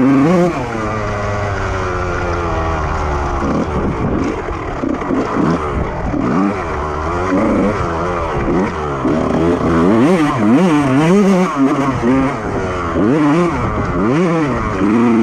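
Honda CR125 single-cylinder two-stroke motocross engine under riding load. The revs drop sharply near the start, then rise and fall over and over, about once a second in the second half, as the throttle is opened and closed.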